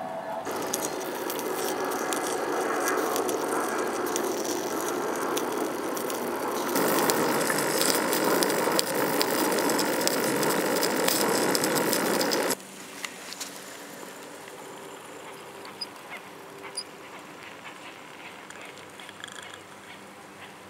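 Loud hissing and rattling close up at a model steam launch's copper boiler and engine, growing louder about seven seconds in. It cuts off abruptly about twelve seconds in, leaving a much quieter background with a few faint clicks.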